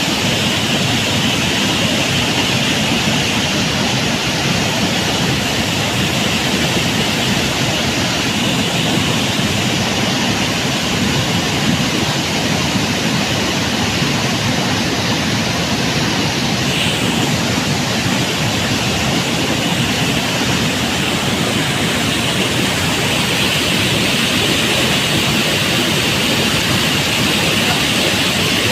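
Waterfall in full flow: a loud, steady rush of falling water.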